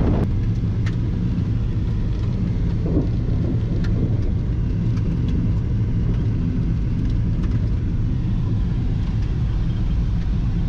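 Steady low road and engine noise of a car driving on a rural road, heard from inside the cabin, with a few faint scattered ticks.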